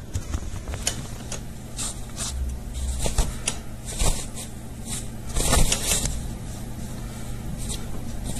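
Cloth rustling as a blanket is handled and moved, in short irregular swishes over a low steady hum.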